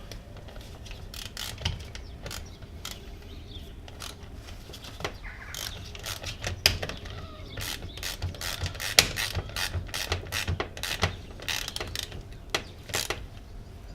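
Socket wrench clicking in short runs, with metal clinks, as the positive terminal clamp is fitted and tightened onto a new car battery's post. The clicks come thicker in the second half.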